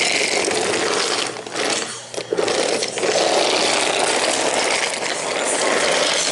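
Steady mechanical clatter of a train running along the track, with brief dips about one and two seconds in.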